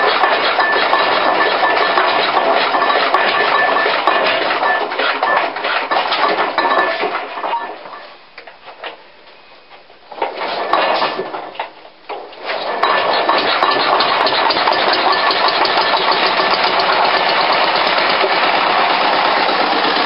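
The engine of a 1942 Liner concrete mixer running, freshly revived after a cleaned carburettor and a freed, previously seized throttle control rod. About eight seconds in it dies away almost to nothing, catches again a couple of seconds later, falters once more, then settles back into a steady run.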